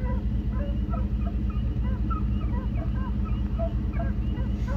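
A pack of hounds baying in the distance while running a coyote: many short, overlapping bawls and chops, several a second. Under them a vehicle engine idles steadily.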